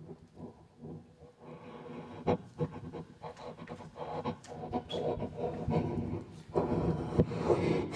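Experimental vocal sounds made into a hand-cupped microphone and amplified: a low hummed tone, then breathy panting, clicks and rasping mouth noises that grow louder and denser toward the end.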